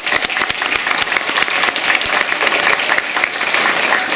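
Audience of schoolchildren applauding, dense steady clapping.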